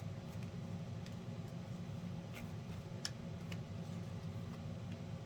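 A few faint, short clicks and rustles of tarot cards being handled and laid down, over a steady low hum.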